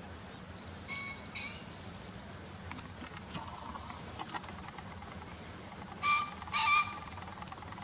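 Green pheasant cock crowing: a harsh two-note call about a second in, and again louder near the end.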